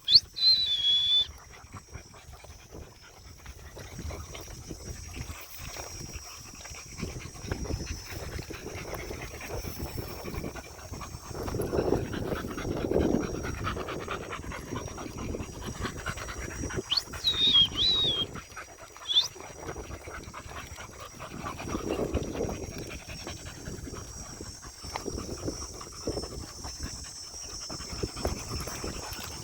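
Dogs panting, with a few short high whistled notes near the start and again about two-thirds of the way through.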